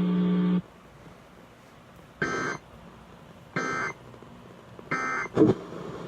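A low, steady buzzing tone cuts off about half a second in. Then come three short, identical data bursts about a second and a half apart: the Emergency Alert System end-of-message (EOM) signal, marking the close of the warning.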